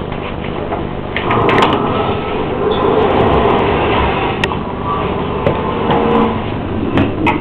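Vacuum cleaner running steadily, getting louder about a second in, with a few clicks and knocks.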